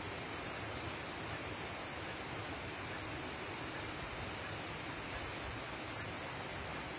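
Steady rush of a river flowing, an even hiss that doesn't change, with a few faint high bird chirps over it.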